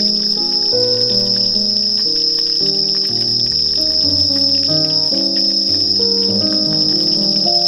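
A dense, steady chorus of crickets trilling without a break. Under it runs background music with a melody of stepping notes.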